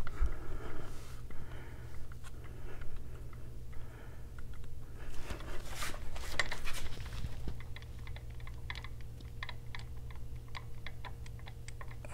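Small metallic clicks and taps of hand tools and bolts being worked in by hand while mounting a motorcycle engine's oil pump, turning into a run of quick light clicks, about three or four a second, in the second half. A steady low hum runs underneath.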